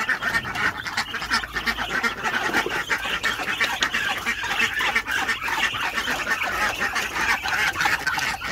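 A crowd of hungry domestic ducks quacking without pause, excited at feeding time.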